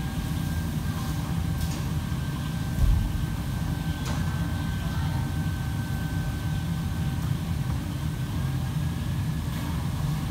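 Steady low rumble of running kitchen equipment with a faint steady whine above it, broken by one dull thump about three seconds in and a few light clicks.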